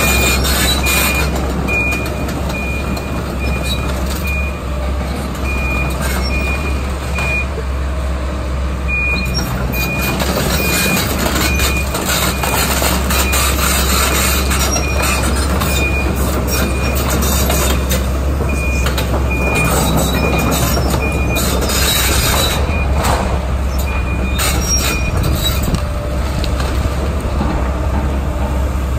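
Kobelco hydraulic excavator's diesel engine running steadily while it demolishes the building, with scattered crashes and clatter of wooden and masonry debris. A backup alarm beeps about twice a second in several separate runs.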